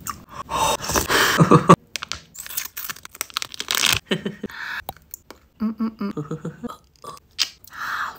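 Close-miked eating sounds: a spoonful of soup slurped from a bowl, then chewing and crunching with many small wet mouth clicks and smacks.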